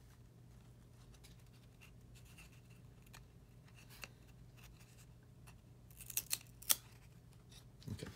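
Topps Chrome trading cards sliding and scraping against each other as a stack is thumbed through by hand: faint rubs and light clicks, with a few sharper snaps about six to seven seconds in.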